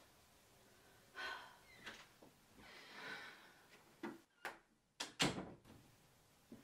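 Quiet room with a few faint rustles, then several sharp clicks and knocks, the loudest a thud just after five seconds in.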